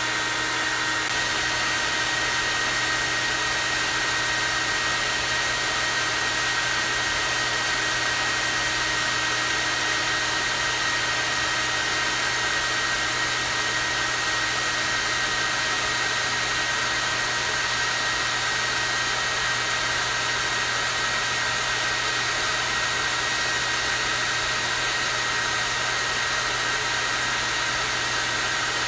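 Hair dryer running steadily on its high-airflow setting: a constant rush of air with a high whine.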